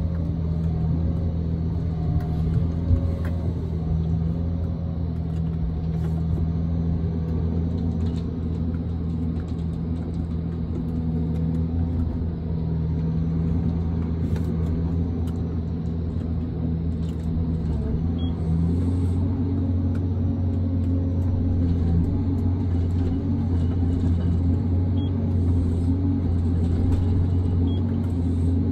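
John Deere 1270G wheeled forestry harvester heard from inside its cab: the diesel engine and hydraulics drone steadily as the boom and harvester head work a tree. A few knocks come about three seconds in, and the drone steps up slightly about eighteen seconds in.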